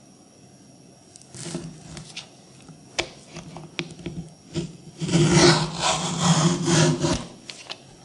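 Vegetable peeler scraping the rind off a winter melon: a few short strokes, a sharp click about three seconds in, then one longer scrape of about two seconds, the loudest of them.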